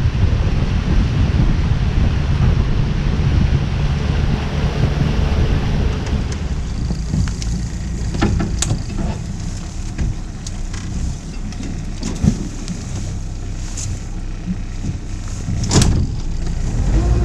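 Boat motor running with wind and water noise. It eases off about six seconds in, after which a few sharp clicks and knocks sound over the steady hum.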